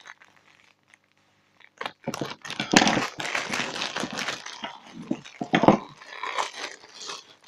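Clear plastic packaging bag crinkling and rustling as a small satellite speaker is unwrapped from it. The crinkling is dense and irregular and starts after about two seconds of near quiet.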